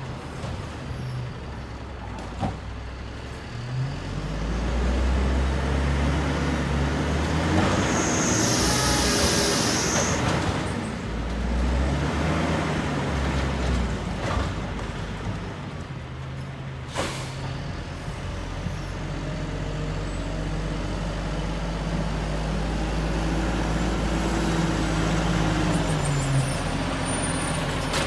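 WhiteGMC garbage truck's L10G natural-gas engine running and revving up as the truck rolls along, about four seconds in and again in the second half. There is a loud hiss of air about eight seconds in and a sharp air-brake pop a little past the middle.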